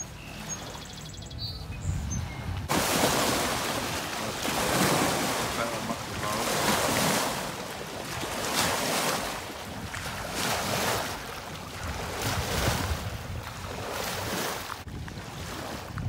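Small lake waves washing up onto a concrete boat ramp in repeated surges, swelling and falling back every second or two. The wash starts suddenly about three seconds in and drops away shortly before the end.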